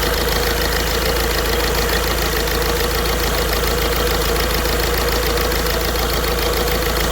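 Ford Figo four-cylinder engine idling steadily with a fast, even ticking. The engine has a misfire traced to a shorted number 3 fuel injector (code P0203), and its injector connectors are being unplugged one at a time to test it.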